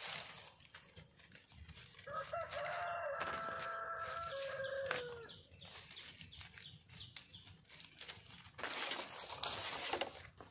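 A rooster crowing once, a single drawn-out call of about three seconds that starts about two seconds in and ends with a falling tail. A burst of rustling noise follows near the end.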